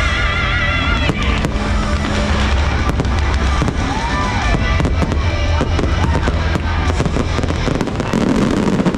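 Fireworks finale: a dense, rapid barrage of aerial shell bursts and crackles over loud show music. A held, wavering musical note breaks off about a second in, while the low bass carries on under the bursts.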